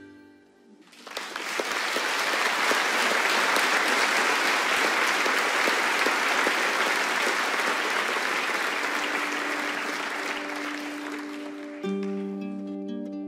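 A large concert audience applauding. The clapping swells quickly about a second in and holds steady, then thins near the end as plucked string notes begin under it.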